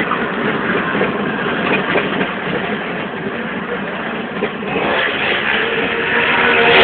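Vehicle engine and road noise heard from inside a moving car, growing louder about five seconds in.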